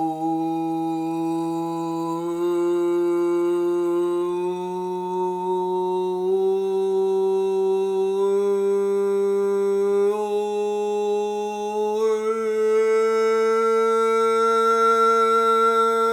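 A man's voice toning one long, unbroken vowel that climbs slowly in pitch in small steps: sound-healing toning meant to carry energy up from below through the body.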